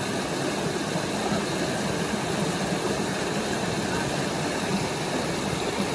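Steady rushing of creek water: an even, unbroken noise.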